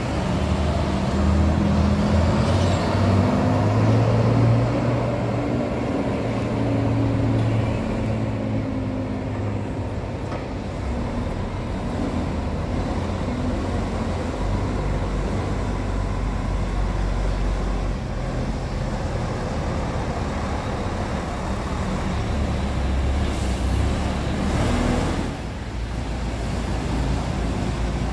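Diesel engines of two intercity coaches running as they drive slowly through a bus terminal and pull into a bay, loudest in the first few seconds as one passes close by. A short hiss of air comes about 24 seconds in.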